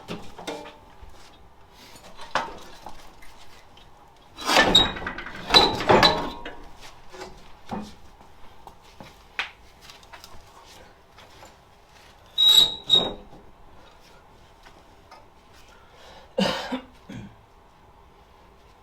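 Metal parts and tools clanking and knocking together in three bursts of clatter: about four seconds in, about twelve seconds in, and near the end. Some of the knocks carry a short metallic ring, with scattered small taps between the bursts.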